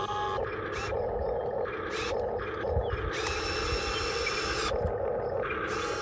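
Diecast Masters 1:20 CAT 330D L all-metal RC excavator working: its electric motors whir in short bursts, four or five times, the longest around the middle, as the boom and arm move. A steady low rumble runs underneath.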